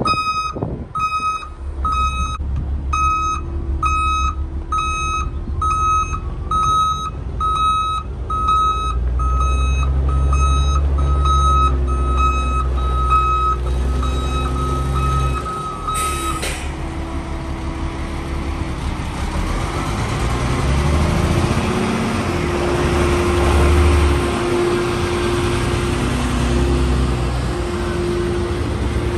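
Volvo A40E articulated dump truck reversing, its reverse alarm beeping steadily at about one and a half beeps a second over the diesel engine running. About halfway through, the beeping stops with a short hiss. The engine then revs up as the truck pulls away forward, its pitch climbing and falling.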